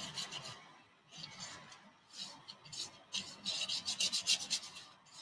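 Paintbrush scrubbing oil paint onto a stretched canvas in a run of short scratchy strokes, coming fastest and thickest from about three seconds in.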